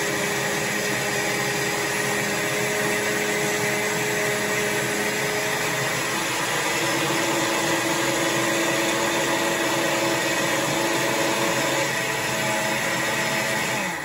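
Cuisinart countertop blender running steadily, blending a fruit smoothie of berries, mango, banana and orange juice; its tone shifts slightly about halfway through, and it cuts off at the very end.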